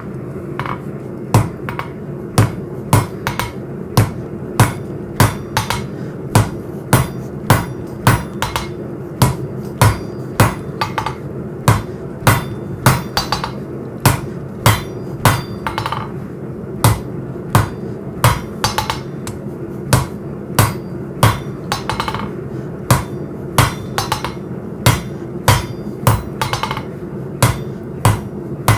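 Hand hammer striking hot coil-spring steel on an anvil, forging a point onto the blade blank: sharp ringing blows about two a second, often in pairs. A steady low hum runs underneath.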